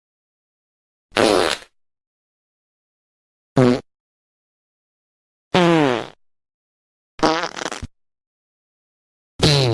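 Five separate fart sounds, each a short pitched blast under a second long, several dropping in pitch as they go, with dead silence between them.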